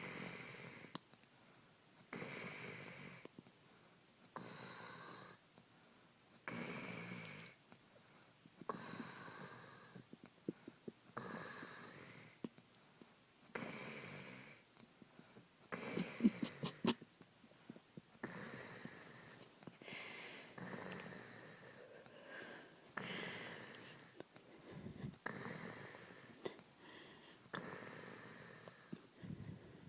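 A woman snoring in her sleep, one rough breath every two to three seconds, a few of them rattling into a snort, the loudest about halfway through.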